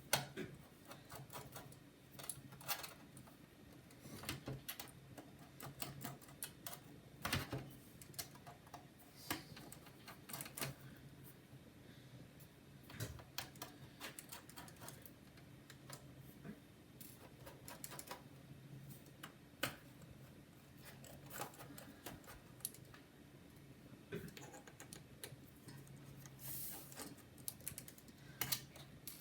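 Irregular small clicks and taps of a precision screwdriver working tiny screws out of a laptop's case, with the odd louder tap of parts being handled.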